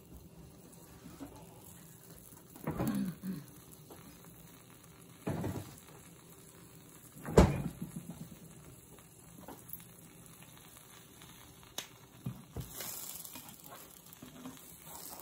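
Scattered kitchen knocks and thumps, the loudest about seven seconds in. Under them is a faint sizzle from a sandwich grilling in butter in a frying pan.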